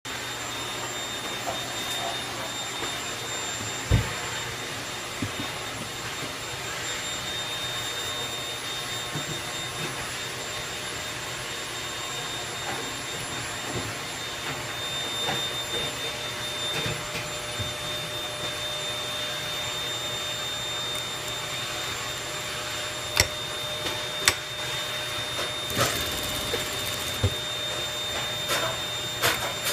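JACK industrial lockstitch sewing machine with a direct-drive servo motor running, a steady whir with a faint high whine. A few sharp clicks stand out, one about four seconds in and two close together near the end.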